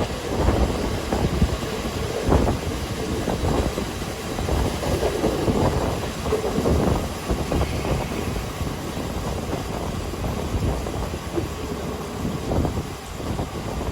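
A KiHa 40 diesel railcar running, with a steady low rumble and irregular knocks and clatter.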